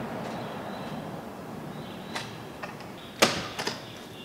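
A latch clicking and a hinged bus entry door being opened: a couple of faint clicks about two seconds in, then a sharper clack a little after three seconds followed by two light taps.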